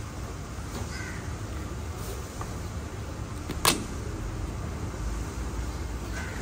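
Steady street background rumble with one sharp clack about halfway through, a large kitchen knife being set down on a plastic cutting board.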